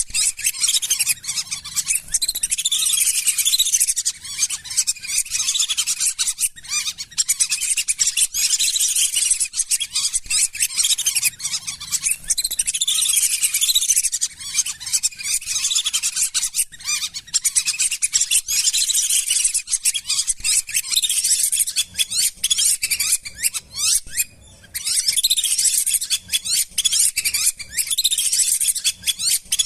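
A flock of lesser whistling ducks calling: many shrill, overlapping whistles in a dense, unbroken chorus, with a brief lull about 24 seconds in.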